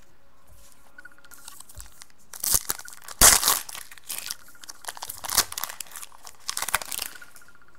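A foil trading-card pack wrapper torn open and crinkled by hand, in several irregular bursts, the loudest about three seconds in.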